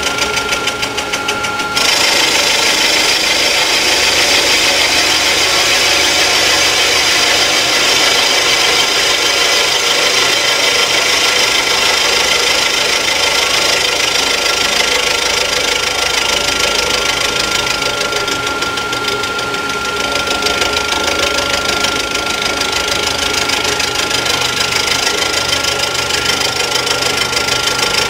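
End mill on a Rottler F90Y CNC machining center cutting the fire deck of an engine block around a water hole, using circular interpolation to prepare it for a water hole repair. A steady high cutting tone with continuous chip chatter, getting louder about two seconds in.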